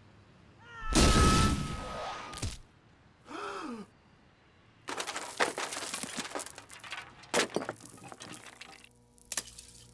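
Layered sound effects: a sudden loud blast about a second in, then a man's short gasp falling in pitch, then from about halfway a dense clatter of debris crashing, cracking and breaking.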